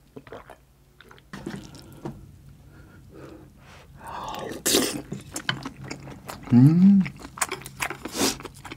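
Close-miked eating sounds: swallowing juice from a bottle, then a big spoonful of curry rice taken in and chewed with wet mouth clicks and smacks. A short hummed "mm" comes a little past the middle.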